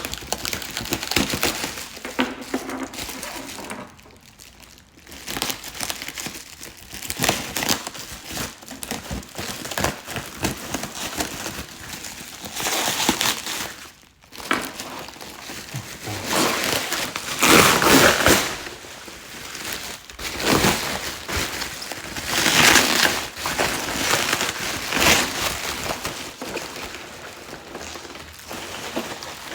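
Figure packaging being unwrapped by hand: irregular crinkling and rustling of packing material, loudest in a few bursts past the middle.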